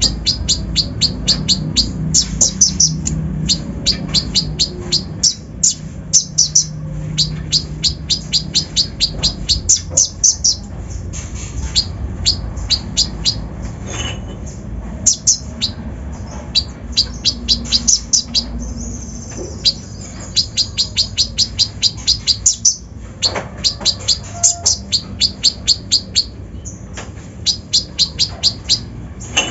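Kolibri ninja (konin) sunbird singing a high, rapid chattering song: fast runs of sharp chips repeated over and over with short breaks. It is a 'full isian' song, packed with phrases copied from other birds, the kind played to stir a caged konin into singing. A faint steady hum runs underneath.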